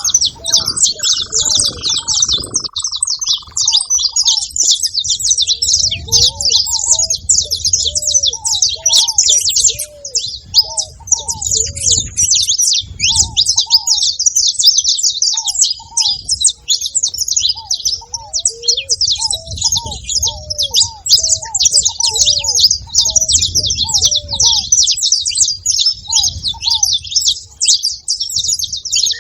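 Saffron finches chirping and singing continuously in a dense, high-pitched chatter, with ruddy ground doves giving short, low coos repeated over and over through the middle.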